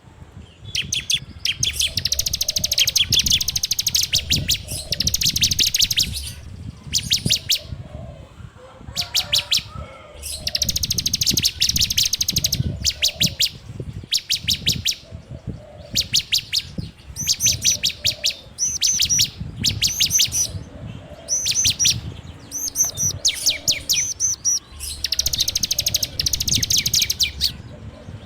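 Ciblek (prinia) singing in the rapid rattling 'ngebren' style: fast runs of sharp, high chattering notes, each run a second or two long, repeated with short pauses between.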